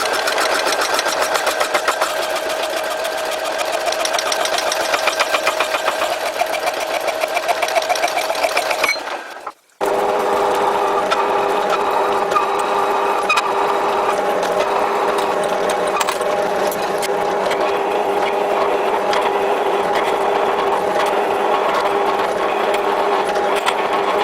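A metalworking machine tool running under cut, first with a fast, even rhythmic chatter. After a brief break about ten seconds in, it gives a steadier hum with a pitched whine and light scattered ticks.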